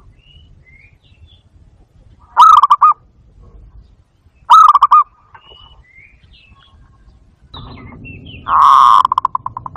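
Barred dove (bato-bato) cooing: three loud calls made of fast rolling pulses, about two and a half seconds in, about four and a half seconds in, and a longer one near the end that trails off into separate pulses. Fainter, higher chirps come in between.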